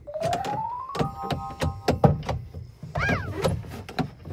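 A Honda side-by-side's engine cuts out, followed by a whine that rises in pitch for about a second and then holds, and a string of sharp clicks and knocks as the driver tries to restart it. The engine does not catch: the machine has stalled and won't start, with its dash lights acting up.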